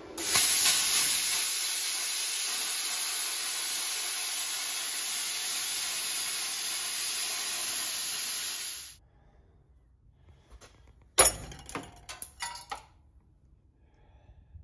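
Plasma cutter cutting steel plate: a loud steady hiss for about nine seconds that cuts off sharply. A couple of seconds later comes a short run of sharp knocks.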